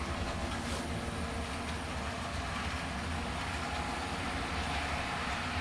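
Model train running steadily up a helix: a single locomotive hauling fifteen weighted cars and a caboose with wheel pickups, a steady hum. The train is at about the limit of what one locomotive can pull.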